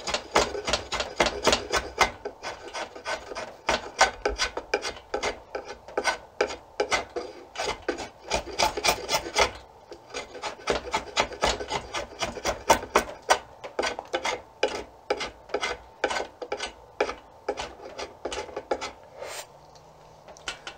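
Draw knife shaving crumbly early wood off an Osage orange bow stave in short, quick scraping strokes, about three a second, with a few brief pauses. The blade is cutting through the last early-wood layer down to the hard late-wood growth ring that will be the bow's back. The strokes stop near the end.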